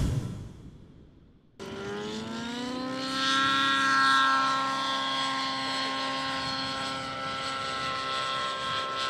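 A loud title-sting hit that dies away over the first second and a half, then a radio-controlled model helicopter's engine running at a high, steady whine, its pitch rising briefly as it starts and then holding.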